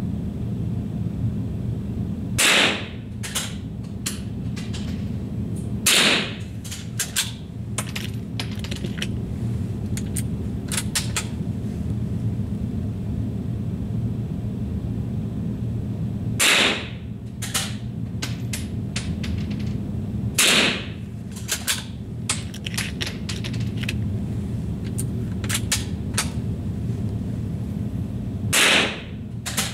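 Five rifle shots, spaced several seconds apart, each followed by a run of light mechanical clicks, over a steady low hum.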